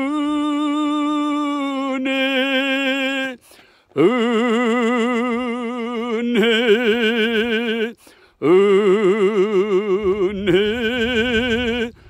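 A singing voice holding long notes with a wide vibrato, in three phrases broken by short pauses about three and a half and eight seconds in.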